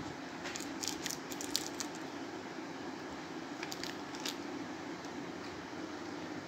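Scissors snipping through packing tape on a cardboard parcel, with the tape crackling: a cluster of short crisp snips and crackles about half a second in, and another near the middle, over a steady low hum.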